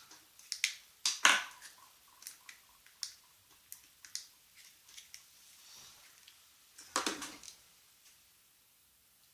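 Small irregular clicks and knocks of plastic parts of a car-alarm key fob case being handled and taken apart by hand. There is a louder cluster of clicks about a second in and another about seven seconds in.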